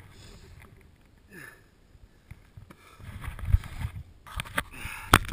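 Rustling and bumping of snow and clothing against a helmet camera close to a person's face, with soft breaths. Sharp knocks on the camera housing come near the end.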